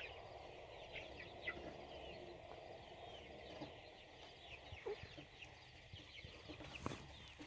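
A flock of chickens clucking and peeping faintly, with many short high chirps that fall in pitch, scattered throughout.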